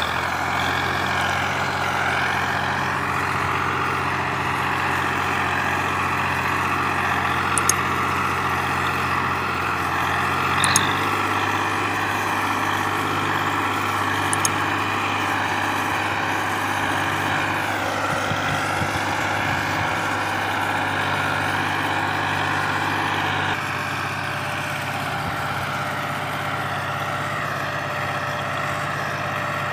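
Ford 4000 tractor's engine running steadily and working hard under the weight of a heavily overloaded sugarcane trolley. The engine sound shifts slightly in pitch about a third of the way in and eases a little near the end.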